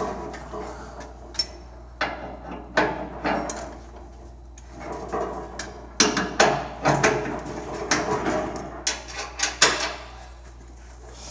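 Irregular metallic clanks, knocks and rattles of steel tractor 3-point hitch parts being handled as the pins and sway chains are worked to adjust the lift-arm width. A cluster of the loudest clanks comes about six to seven seconds in, and another near the end.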